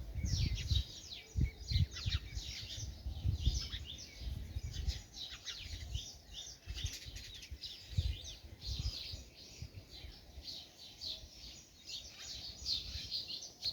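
A flock of small birds chirping inside a well, with rapid, high, downward-sliding chirps overlapping constantly and echoing. Low, irregular rumbling runs underneath and is the loudest part.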